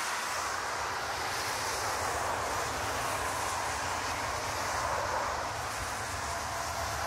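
Jet engines of an Airbus A340 running as the airliner rolls along a wet runway: a steady rushing noise with a low rumble and a faint whine that dips and rises slightly.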